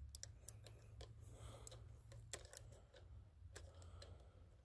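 Near silence broken by about a dozen faint, sharp clicks and ticks, scattered irregularly.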